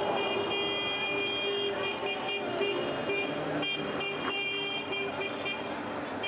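Vehicle horns sounding in long, repeated blasts, with short breaks between them, over the steady noise of a busy street with passing vehicles.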